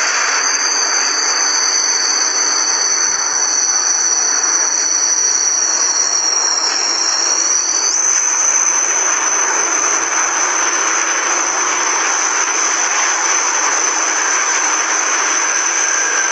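Fighter jet engine running: a steady rushing roar with a high turbine whine. Two whine tones draw together into one about eight seconds in.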